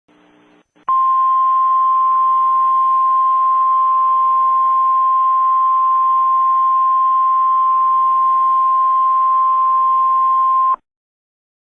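NOAA Weather Radio 1050 Hz warning alarm tone of a mock Emergency Alert System message: a single steady tone held for about ten seconds, then cut off sharply, over faint radio-style hiss.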